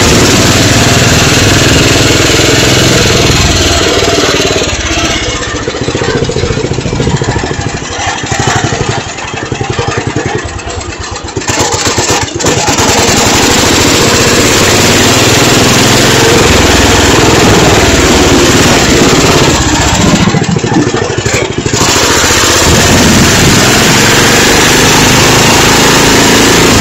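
Small engine of a ride-on lawn tractor running steadily as it is driven along. The level drops twice: for several seconds about a third of the way in, and briefly about three quarters of the way through.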